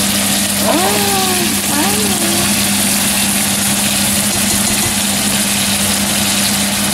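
Shrimp, diced onion and garlic frying in oil in a stainless steel pan, a loud steady sizzle, over a constant low hum.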